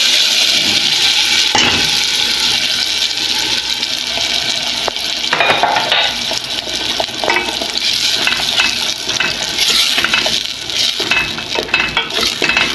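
Chopped tomatoes sizzling in hot oil in a pan. From about five seconds in, a utensil stirs and scrapes against the pan with frequent clinks.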